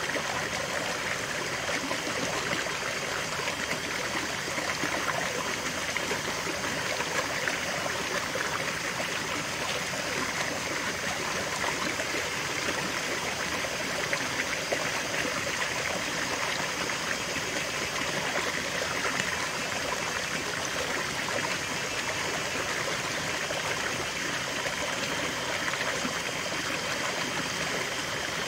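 Shallow rocky stream running steadily, water splashing over a small cascade between boulders into a pool.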